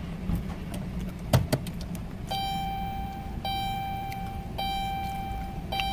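A sharp click, then a car's electronic warning chime starting about two seconds in: a steady tone held for about a second, breaking briefly and repeating, over a low hum.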